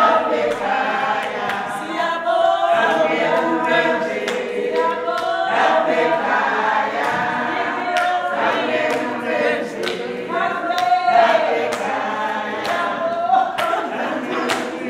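A group of adults singing together unaccompanied, with hand claps keeping a steady beat.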